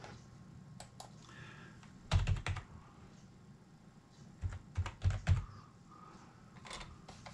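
Computer keyboard typing: a quick run of about five keystrokes about two seconds in, another run of about five around five seconds in, and a few lighter clicks near the end.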